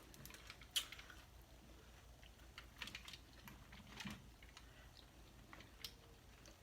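Faint, scattered clicks and small crackles of king crab legs being eaten: shell being picked apart and meat chewed, the sharpest click about a second in.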